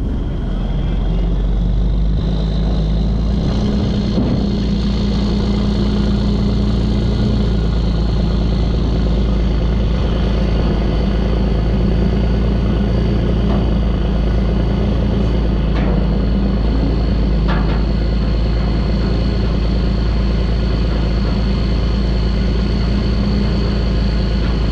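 Freightliner dump truck's diesel engine running steadily as the empty truck moves slowly, picking up a little about two seconds in, with a thin high whine held above it.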